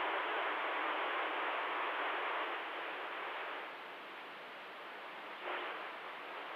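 Static hiss from a CB radio receiver with the channel open between transmissions and no one talking. The hiss eases a little past halfway and swells briefly near the end.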